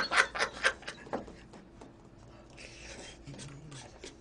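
A man's laughter dies away in short breathy pulses over the first second. Then come the quieter sounds of eating: a plastic fork scraping in a plastic takeout container.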